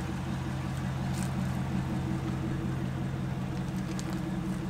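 A steady low drone made of a few held tones that do not change in pitch or loudness.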